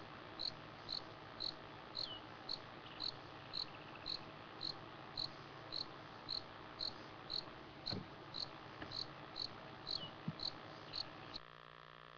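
Insect chirping steadily at night, a sharp high chirp about twice a second, cutting off suddenly about a second before the end.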